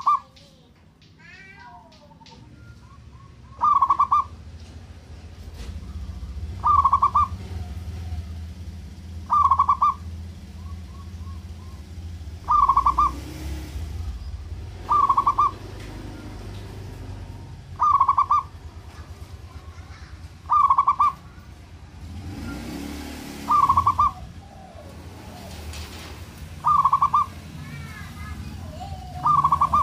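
Zebra dove (perkutut) cooing: a short, stuttering coo, loud and clear, repeated about every three seconds, about ten times. Under it is a low steady rumble, with a few faint chirps from other small birds.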